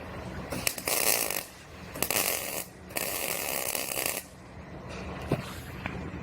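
Welding the replacement lower quarter panel extension onto the car body in three short bursts, about half a second to a second long each, a crackling hiss with brief pauses between welds.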